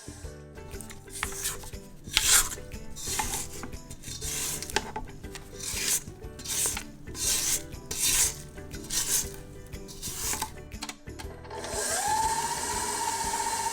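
An electric mixer winds down and stops. About a dozen irregular scraping strokes follow, as the mixing bowl is scraped down. Near the end the mixer starts up again and runs steadily.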